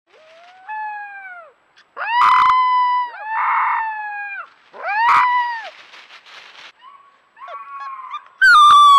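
A four-week-old wolf pup howling in its first attempts: about six short, high-pitched howls, each rising and then falling in pitch, with the loudest and highest one near the end. A few brief clicks sound between the howls.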